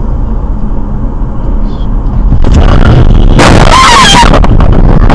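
Car's steady road rumble heard from inside the cabin. About two and a half seconds in it breaks into a very loud rushing, crashing noise as the car runs off the road onto rough ground and into brush.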